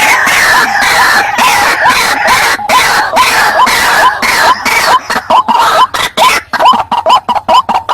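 White-breasted waterhen calling: harsh, raucous croaks overlaid by a rapid run of short upward-hooked notes, about three a second. This is the bird's territorial call, played as a lure to bring waterhens toward the sound.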